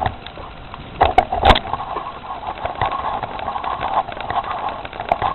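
Small 72 cc Predator single-cylinder engine on a homemade motorized bicycle idling steadily, with a few sharp knocks about a second in.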